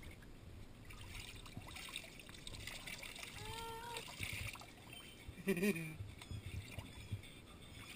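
Water trickling and splashing in a small inflatable paddling pool as a toddler pours water from a bottle over his head. A toddler's short vocal sound a little before halfway, and a louder brief one about two-thirds through.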